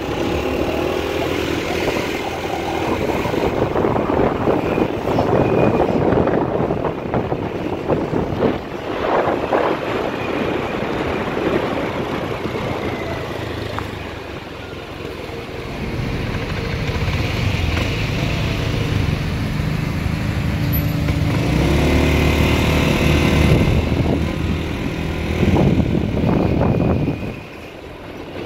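Riding on a motorbike taxi: the motorbike's engine runs under heavy wind rush on the microphone, with other traffic close by. The engine note is strongest and steadiest in the second half, and the whole sound drops away briefly near the end.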